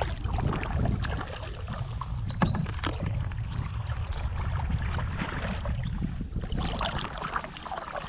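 Kayak paddle strokes: water splashing and dripping off the paddle blades in irregular bursts, with a sharp knock about two and a half seconds in, over wind rumbling on the microphone.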